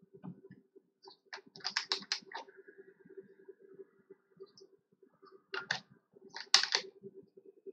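Scattered sharp clicks and taps in two clusters, one about a second and a half in and a louder one near the end, over a faint steady hum.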